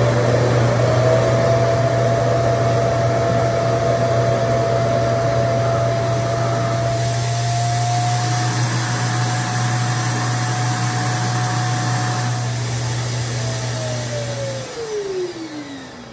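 RevAir reverse hair dryer running, its suction motor pulling air and hair into the tube with a steady airy rush, a low hum and a high whine. Near the end it is switched off and the whine falls away as the motor spins down.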